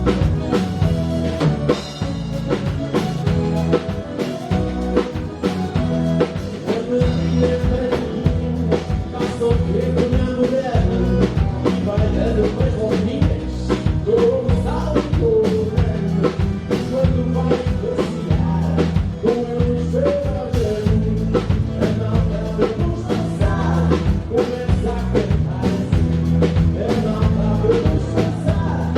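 A live band plays a song with a steady drum-kit beat and a melody line over it, heard as stage sound.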